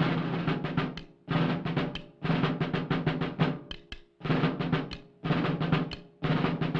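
Marching-band drumming on an early 1930s cartoon soundtrack: snare drum rolls in short phrases about once a second, with a steady low note beneath them.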